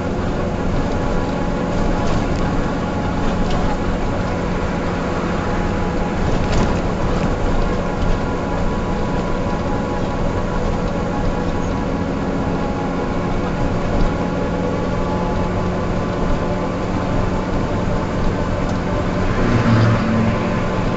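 Mercedes-Benz O305 city bus's diesel engine running steadily, with a couple of brief clicks or rattles.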